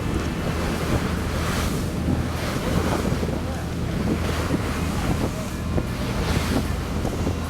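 Steady low drone of a fishing boat's engine under gusting wind noise on the microphone and the wash of water.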